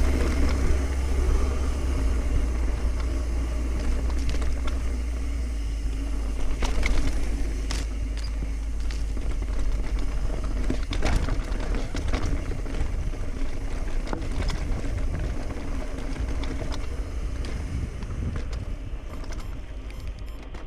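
Wind rumbling on the camera microphone over the rattle of a Cannondale Trigger mountain bike riding fast down dry dirt singletrack, with sharp knocks as the bike hits bumps. The sound fades out near the end.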